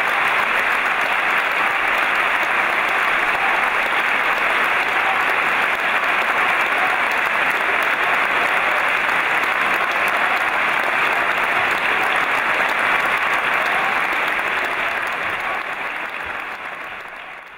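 Audience applauding steadily, a dense even clapping that fades out near the end.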